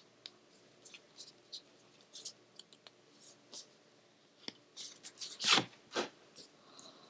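Cardboard eyeshadow palette box handled and opened by hand: scattered light clicks and scrapes, with two louder brushing sounds about five and a half and six seconds in.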